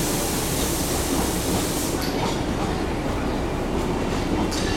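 Darjeeling Himalayan Railway narrow-gauge train running past, a steady rumble with wheel clatter. A high hiss drops away about two seconds in, and a few sharp clicks come near the end.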